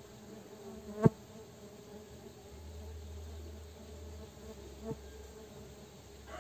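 Stingless bees (Tetragonula biroi) buzzing around their wooden hive box, a steady faint hum. A sharp click about a second in, and a smaller one near the end.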